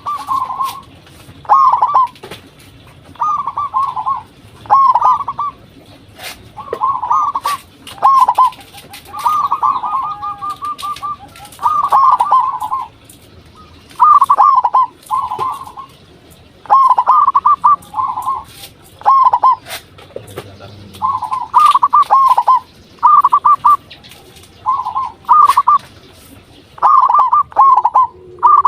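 Zebra doves singing: short bursts of quick, repeated coo notes, one phrase after another every one to two seconds.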